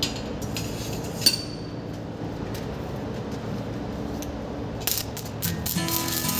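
A few light metallic clinks, then about five seconds in a stick-welding arc (2.5 mm electrode at 110 A) strikes and crackles steadily.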